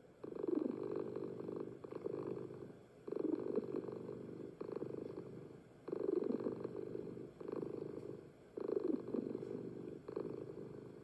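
Domestic tabby cat purring close by, a steady purr that swells and fades with its breathing, about four long breaths roughly three seconds apart.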